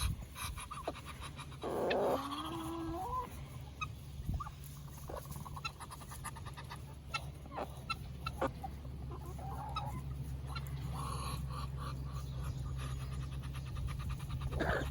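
Chickens and a male duck calling while they eat: clucks and chatter, with a longer call that steps in pitch about two seconds in. Many small clicks of beaks pecking at the food run through it, over a steady low hum.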